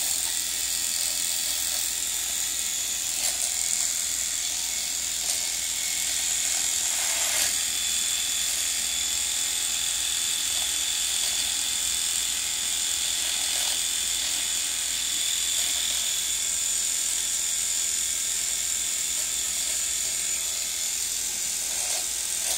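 Electric shaver running steadily against a man's face and beard, with a constant high-pitched whine.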